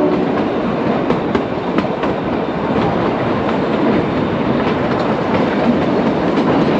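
Kalka–Shimla narrow-gauge toy train running along the track, heard from aboard: a steady rumble of wheels on rail with a few faint clicks from rail joints.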